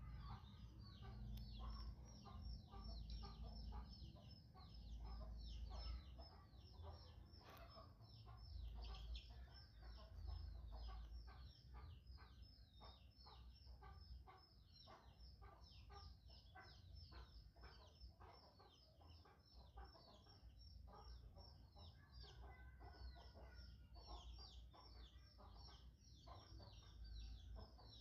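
Faint, rapid bird chirps, each falling in pitch, several a second and continuing throughout, over a low rumble.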